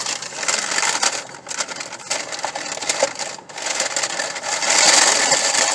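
Paper takeout bag rustling and crinkling as it is handled, loudest near the end.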